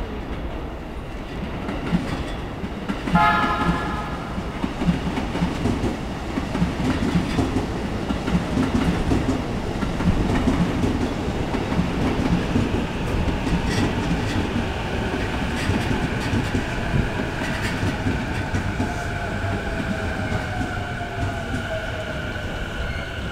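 Chuo Line electric commuter train sounds one short horn blast about three seconds in, then runs along the rails with a steady rumble and clickety-clack of its wheels. In the second half, an electric motor whine slowly falls in pitch.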